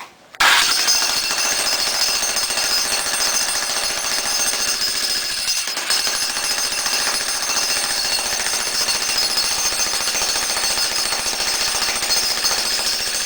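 Electric jackhammer (15-amp demolition hammer) chiselling into a concrete floor. It starts about half a second in and hammers steadily, with a brief dip just before the middle.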